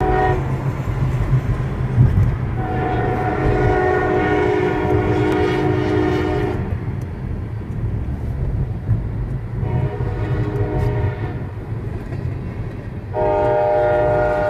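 CSX diesel locomotive's multi-chime air horn sounding the grade-crossing warning: a blast ending just as it begins, a long blast, a short one, then another long blast starting near the end. Heard from inside a moving car, over a steady road and engine rumble.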